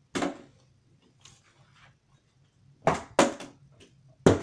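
A few short, sharp knocks and thuds: a plastic water bottle striking a wooden bookshelf and tipping onto its side after a failed flip. There is one knock just after the start, a quick cluster about three seconds in, and another sharp knock near the end.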